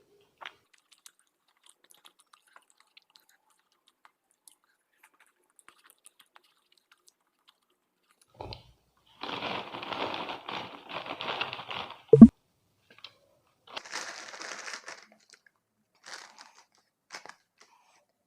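Crunching and crinkling in a few short stretches in the second half, from eating crunchy food such as potato chips, with one sharp knock, the loudest sound, about twelve seconds in. The first half is mostly quiet.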